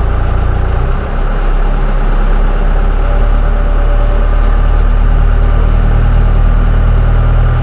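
Branson 7845c tractor's diesel engine running steadily, heard from inside the closed cab while the front loader carries a heavy hot tub. The engine note dips briefly about a second in, then holds steady.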